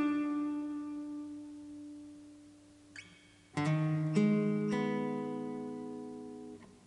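Solo steel-string acoustic guitar played fingerstyle with a thumb pick. A note rings and slowly fades for about three seconds. About halfway through, a full chord is plucked and left to ring, with two more bass notes added before it fades.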